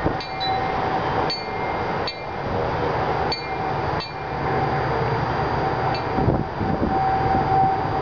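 Metal tube wind chime swinging in gusty wind, its tubes struck about six times, mostly in the first half, each strike leaving clear tones ringing on. Under it, steady wind rushes across the microphone.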